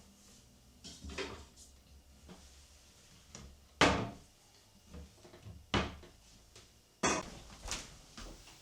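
A handful of separate knocks and clunks, like household objects or a cupboard door being handled, with the loudest about four seconds in.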